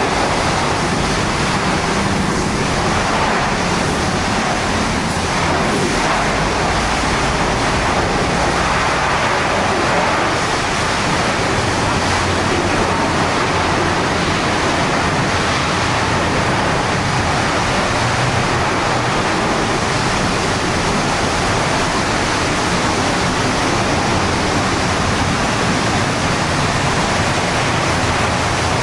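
Steady, loud rushing hiss of car-wash spray equipment, unbroken throughout.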